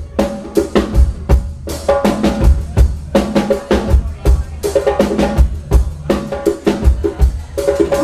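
A konpa band playing live: a drum kit keeps a steady groove of kick-drum hits and snare rimshots under bass and sustained melodic notes.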